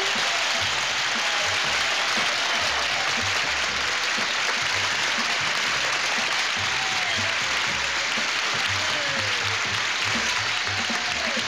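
Banquet audience applauding steadily, with band music and a bass line playing underneath.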